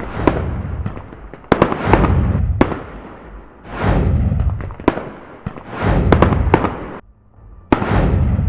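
Fireworks sound effect: sharp cracks and booming bursts with crackling tails, coming every second or two, with a short lull about seven seconds in.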